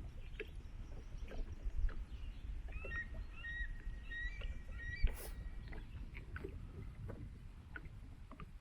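Kayak being paddled: water splashing and dripping off the paddle blades over a low wash of water and wind. A bird sings in a series of whistled notes through the middle, and there is one sharp knock, like the paddle hitting the hull, about five seconds in.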